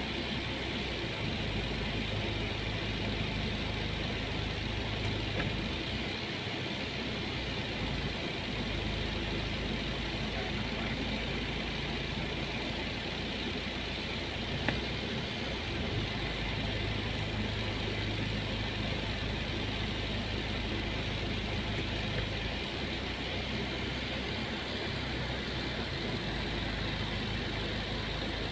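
Car engine running at low speed with steady road and cabin noise, heard from inside the car as it creeps along in slow traffic. A low engine hum swells and fades a few times, and there is one brief click about fifteen seconds in.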